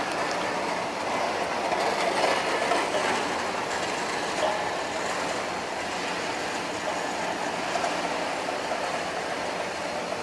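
Automatic HVAC duct production line running: a steady mechanical noise with a few faint clicks.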